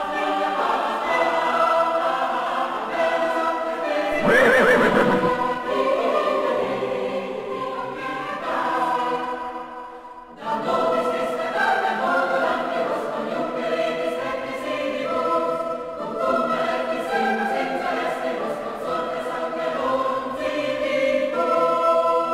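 Background music of choral singing: many voices holding long, overlapping chords, dipping briefly about ten seconds in before a new phrase begins.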